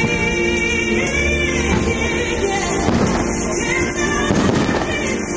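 Fireworks show soundtrack music with singing voices, with firework shells bursting and crackling about three seconds in and again about four and a half seconds in.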